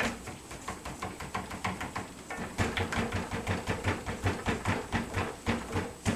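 Hand-worked test rig clattering in a fast, regular rhythm as it repeatedly flexes and strains an HDMI cable clamped at its connector.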